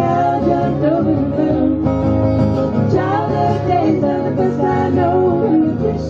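Women singing a song together to a strummed acoustic guitar.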